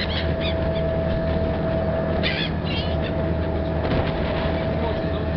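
A ferry's engine drones steadily with a constant hum, under the rush of wind and water on deck. Gulls call over it, a few short calls at the start and again about two to three seconds in.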